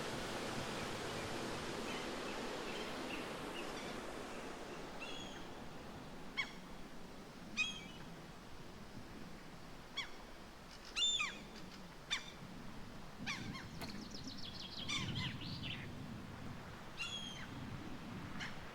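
A bird giving short, harsh calls, about a dozen over the stretch, each a quick downward slur. A steady rushing noise fades away over the first few seconds.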